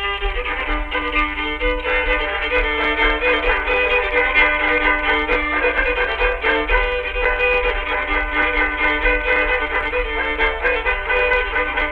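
Background instrumental music with a fiddle playing the melody in held notes.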